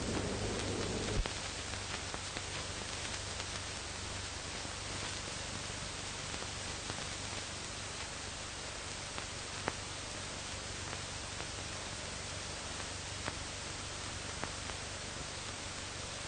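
Steady hiss and low hum of an old film soundtrack, with a few scattered clicks. About a second in, a sharp click comes as a fuller lower sound drops out, leaving only the hiss.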